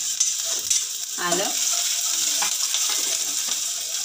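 Chopped garlic and green chillies sizzling in a little hot oil in a steel pot, a steady hiss, with a metal ladle clicking and scraping against the pot as they are stirred.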